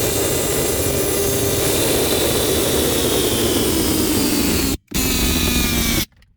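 Cordless compact impact wrench hammering without a break for about five seconds, its pitch slowly sinking. It stops briefly, then gives a second burst of about a second.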